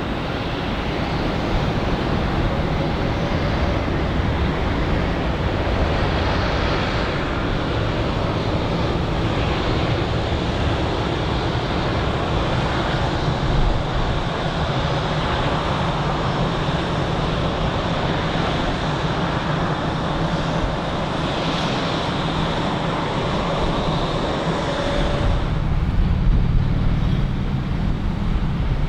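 Jet airliner engines: a loud, steady rush with a high whine. The higher part cuts off suddenly near the end, leaving a low rumble.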